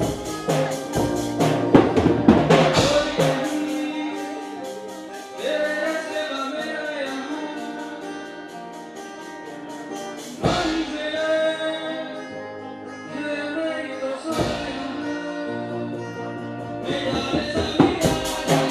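Live band playing a Hindi film song: a male singer on a microphone over electric and acoustic guitars and a drum kit. The playing thins out and gets quieter after about three seconds, then builds back up near the end.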